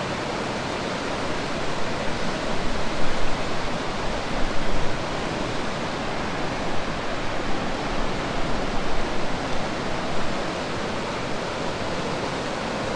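Steady rushing of the Ardèche river running high with early-season flow.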